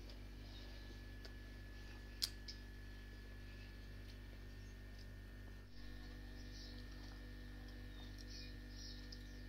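Steady low electrical hum in a small room, with one sharp click about two seconds in and a few fainter ticks. In the second half come faint soft slurps as hot broth is sipped from cups.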